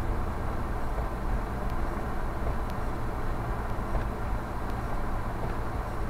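Steady low rumble of a car's engine and road noise inside the cabin, picked up by a dashcam, with a few faint ticks.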